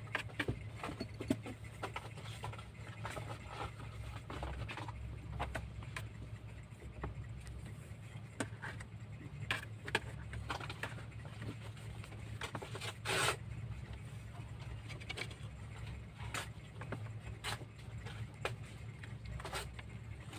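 Kittens' paws and claws scratching and pattering on cardboard boxes as they play-fight, with one louder scratch about two-thirds of the way through. A steady low hum runs underneath.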